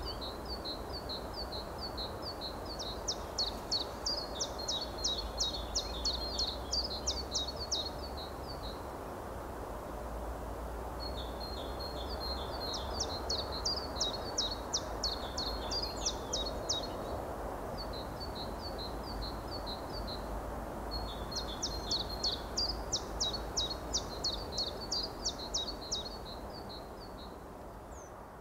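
A small songbird singing high, rapid trilled phrases of sharp repeated notes, in four bouts with short pauses between them, over a steady low outdoor rush. The sound fades out near the end.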